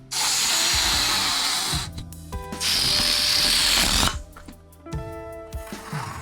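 Recorded balloon-inflation sound effect played back: air hissing in two long strokes, each lasting about a second and a half. Music with steady held notes follows near the end.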